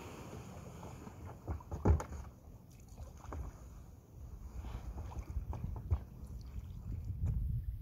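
A kayak is pushed off from the shore into shallow river water and paddled away. Short knocks and scrapes sound against the hull, with water splashing; the loudest knock comes about two seconds in.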